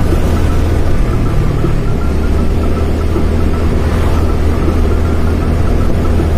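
Steady low rumble of riding a motor scooter: engine and wind noise on the microphone, unbroken throughout.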